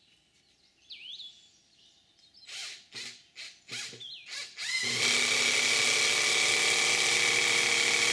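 Cordless drill driving a screw into the log end to fix a steel end plate: a few short bursts, then a steady run from about five seconds in. Birds chirp in the first second or so.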